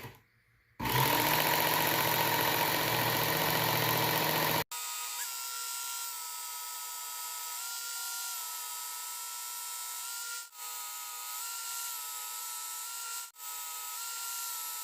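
Work Sharp Ken Onion Edition belt sharpener running, its 220-grit belt grinding a knife edge to knock down the burr. It starts about a second in. About four and a half seconds in, the sound changes abruptly to a steadier, higher whine with small steps in pitch, broken twice by brief cut-outs.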